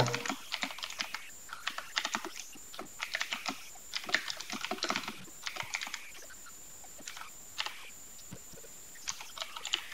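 Computer keyboard typing in quick runs of keystrokes, easing off into a lull past the middle with a few more keystrokes near the end.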